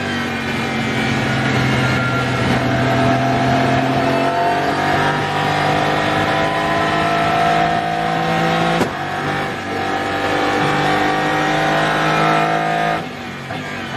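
Aston Martin Vantage GT3 Evo's twin-turbo V8 heard from onboard under acceleration. Its pitch climbs slowly through a long pull, breaks sharply at a gear change about nine seconds in, and climbs again. The revs drop about a second before the end.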